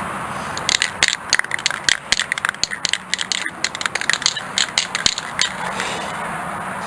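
Aerosol spray-paint can being shaken, its mixing ball rattling in quick irregular clicks that start just under a second in and stop about a second before the end.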